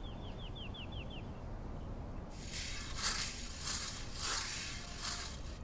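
A rake scraping across dry, dusty ground in about five strokes, beginning a couple of seconds in. At the start, a bird gives a quick run of high, falling chirps.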